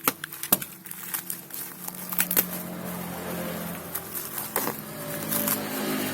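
Plastic packaging crinkling and rustling as a replacement laptop keyboard is unboxed, with a few sharp clicks and snaps in the first two seconds.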